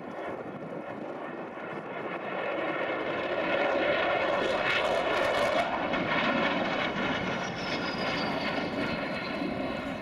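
Avro Vulcan's four Rolls-Royce Bristol Olympus 202 jet engines on a flypast, the noise swelling to its loudest about halfway through as the bomber passes. A high whistle then slides down in pitch as it moves away.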